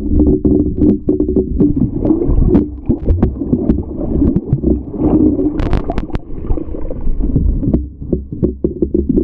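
Water heard through a submerged GoPro: a muffled, steady low rumble of moving water with bubbling and many small clicks and knocks, a few sharper clicks about halfway through.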